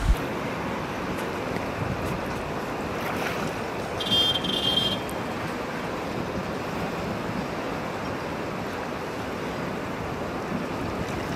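Steady rush of a wide river's flowing water, with some wind on the microphone. A short, high-pitched sound stands out for about a second, about four seconds in.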